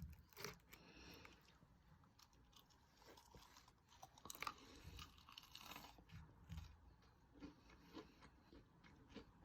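A person chewing and biting crunchy food close to the microphone, faint, irregular crunches spaced through.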